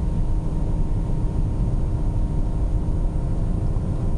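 Steady low rumble of a moving car heard from inside the cabin: engine and tyre noise with a faint hum of a few steady tones and no sudden changes.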